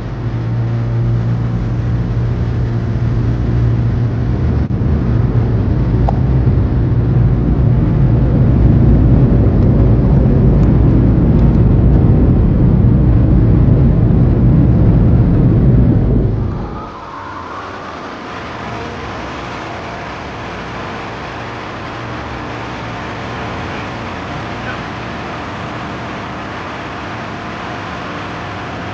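Automatic car wash tunnel machinery heard from inside the car: a loud, steady low rumble with a hum that builds over the first few seconds. About sixteen seconds in it cuts off suddenly, leaving a much quieter steady background noise.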